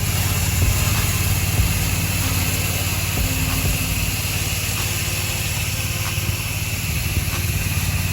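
Small gasoline engine of a pressure-washing rig running steadily, with the constant hiss of water spraying from the wand.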